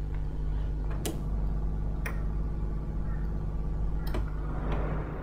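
Split-system air conditioner indoor unit starting up in fan-only mode at its lowest fan speed: the fan motor gives a steady low hum, with a sharp tick about once a second.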